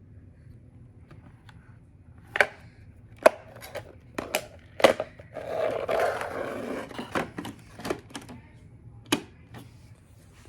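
A string of sharp knocks and clicks at irregular intervals, with a rough scraping rattle for about two seconds in the middle, over a faint low steady hum.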